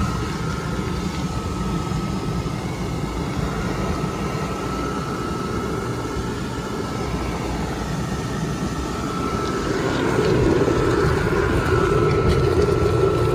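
Electric blower fan of a 20-foot Gemmy airblown nutcracker inflatable running, heard from inside the inflated nylon body: a steady whir with a constant tone, a little louder about ten seconds in.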